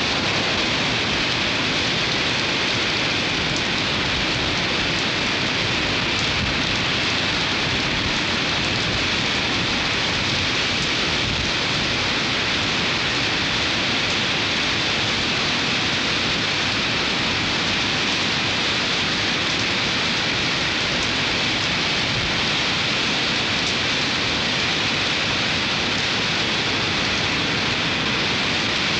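Steady, even rushing noise of stormy weather by the sea, with no distinct events.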